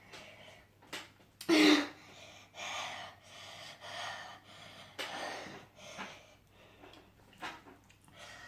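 A person breathing hard and gasping, short breaths in and out about once a second, with one louder voiced gasp about a second and a half in: a reaction to the burning heat of a very hot chilli sauce just tasted.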